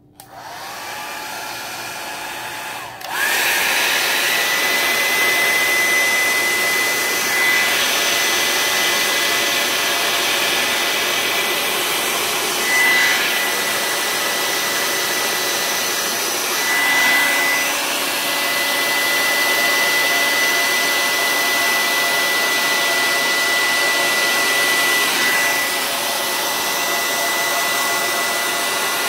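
Handheld hair dryer switched on and running, blowing across wet acrylic pour paint. It gets much louder about three seconds in, then runs steadily with a thin high motor whine, swelling briefly now and then as the air stream is moved.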